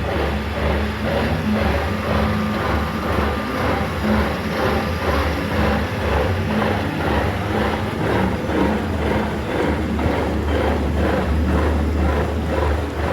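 Metal lathe running under power, a steady low mechanical drone with a quick regular pulsing.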